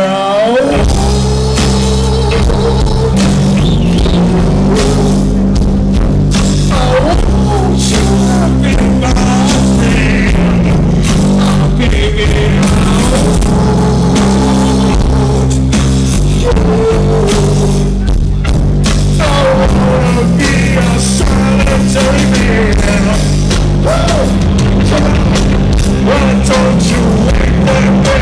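Live rock band playing loud, with electric guitar, bass and drums, and a wailing lead line sliding up and down in pitch over the top.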